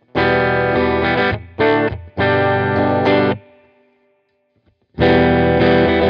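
Harley Benton SC-200 electric guitar on its bridge humbucker, through GarageBand's Brit & Clean amp model, strumming chords: a long chord, a short stab and another long chord left to ring out, then after a pause of about a second the same pattern starts again near the end. The clean tone still has a little dirt and crunch from the direct recording.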